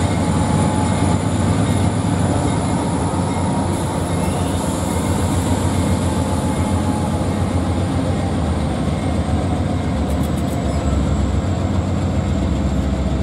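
Freight train with Norfolk Southern diesel locomotives rolling past a grade crossing: a loud, steady rumble of engines and wheels on rail, with a thin, steady high-pitched squeal above it.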